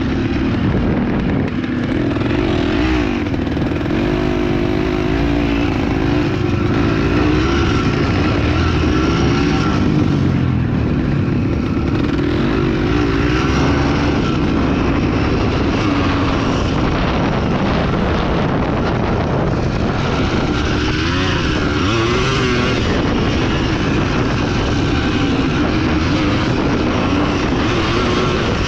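Off-road dirt bike engine running while being ridden, its revs rising and falling continually.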